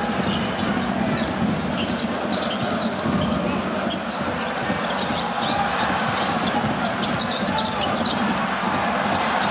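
Live basketball game sound in a full arena: a steady crowd din with many short, high squeaks of sneakers on the hardwood court and the ball bouncing.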